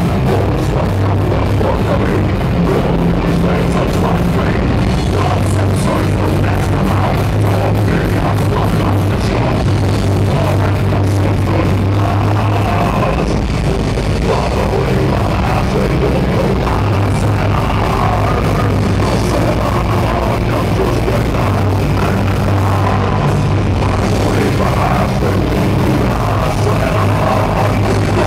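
Metal band playing live: distorted electric guitars, bass guitar and fast drums together in a loud, dense, unbroken wall of sound, heard from the crowd in a club.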